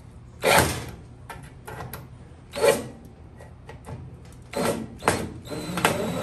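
About five separate clunks and rattles of a gas stove's sheet-metal back panel as it is pushed into place and screwed down by hand.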